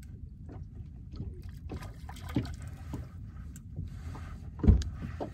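Water splashing as a hooked redfish thrashes at the surface beside a boat while it is landed, with one loud thump near the end.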